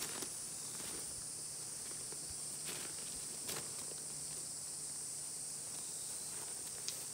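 Steady high-pitched buzz of an insect chorus, with a few faint clicks.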